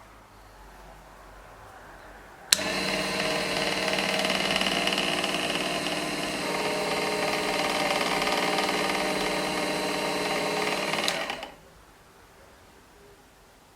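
Mini metal milling machine's small electric motor starting with a click about two and a half seconds in, running at a steady whine for about nine seconds, then stopping.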